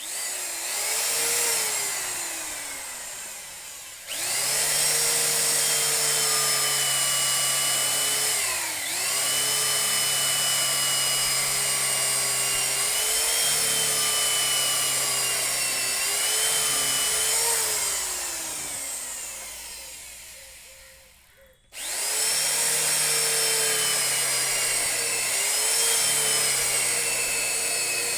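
Handheld electric power tool, such as a drill, running at speed. Its whine dips in pitch several times as it bites into the work. It winds down and is switched on again twice, about four seconds in and again past the twenty-second mark.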